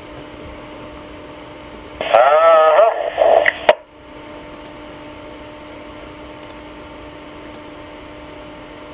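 TYT TH-9000D VHF FM mobile radio receiver hissing between transmissions, with a steady low hum. About two seconds in, a short garbled, warbling voice transmission of under two seconds comes through and ends with a sharp squelch click.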